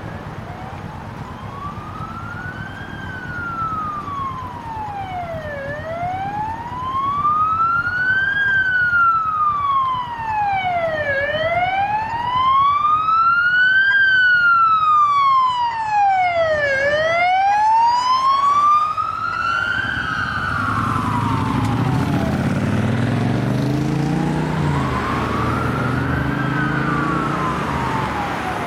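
Queensland Police car siren on a slow wail, rising and falling about every five and a half seconds, growing louder as the car approaches and passes. After it passes, its engine is heard revving up repeatedly as it accelerates away under the fading wail.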